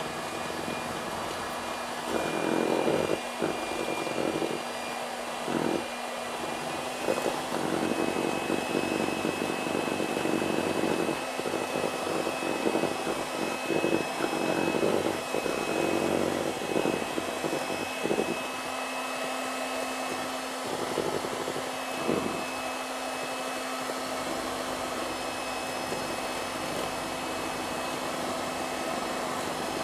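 Electric hand mixer running steadily at speed, its beaters whipping egg whites and sugar into meringue, with a steady motor whine and irregular knocks from the beaters in the bowl.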